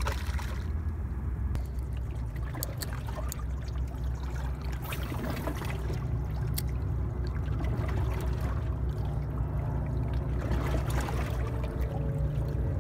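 Water trickling and lapping among shoreline rocks, over a steady low rumble, with scattered small clicks. Near the end, music begins to come in.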